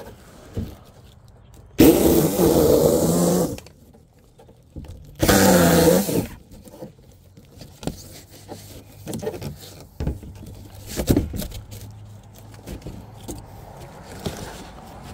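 Electric saw cutting in two short bursts, the first about a second and a half long and the second about a second, its motor pitch dipping as it bites. Scattered knocks and clatter of handled pieces follow.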